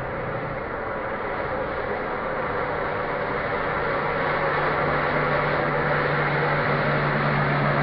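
A 70 mm electric ducted fan in a model flying wing, running steadily in flight: a constant noise with a low hum under it that slowly grows louder as the wing comes closer.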